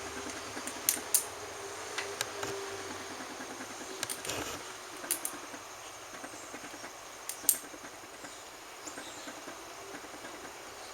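Sharp crackling clicks at irregular intervals, a few seconds apart, over a steady hiss; the loudest crack comes about three quarters of the way through.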